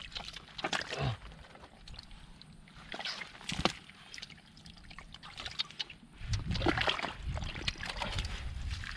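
Hands sloshing and splashing in shallow muddy water while groping for catfish, with irregular splashes and a sharp slap about three and a half seconds in. The sloshing grows louder and busier for the last few seconds.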